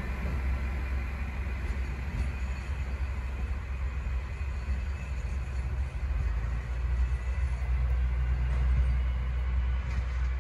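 Narrow-gauge diesel railcar engine running with a low, steady hum, swelling a little in the second half.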